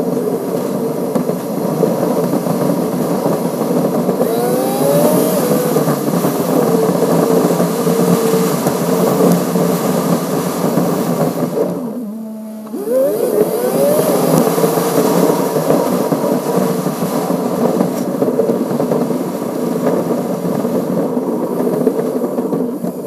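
Car engine, tyre and wind noise picked up at the front grille, played back at six times normal speed, so it runs as a fast, high drone. About halfway through it drops briefly as the car slows for an intersection, then rising whines follow as the car pulls away.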